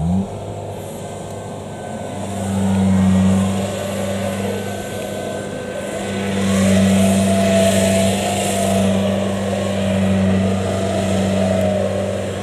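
Kubota DC70 rice combine harvester's diesel engine running with a steady drone that swells in loudness twice, about two seconds in and again about six seconds in.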